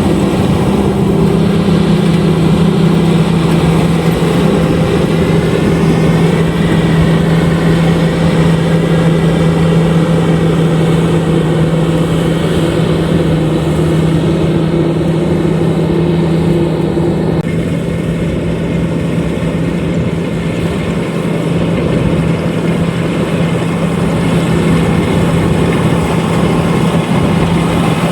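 Lovol RG130EVO combine harvester running steadily, a constant engine drone with a strong low hum. A little past halfway some of the higher sound drops away, while the hum carries on.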